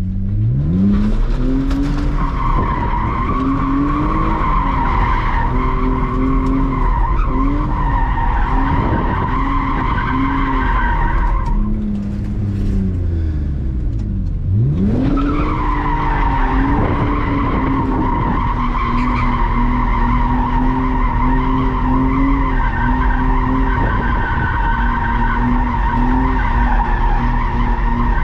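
Car engine held at high revs while the rear tires squeal continuously through tight donuts, heard from inside the cabin. About twelve seconds in the squeal stops and the engine falls back for a few seconds, then it revs up sharply and the tires squeal again.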